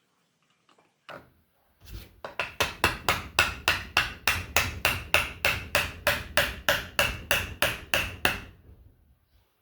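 Hammer blows: one knock, then a steady series of strikes at about three and a half a second for some six seconds, each ringing briefly.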